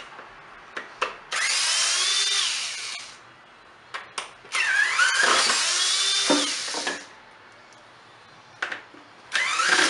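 Snap-On cordless screwdriver on a fresh battery backing screws out of a plastic blower housing. It runs in three bursts of a couple of seconds each, its motor whine climbing in pitch within each run, with small clicks between.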